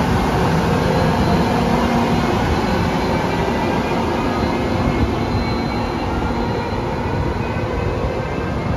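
Trenitalia E402B electric locomotive moving past at close range: a loud, steady running noise of wheels on rail, with a faint whine of several steady tones over it.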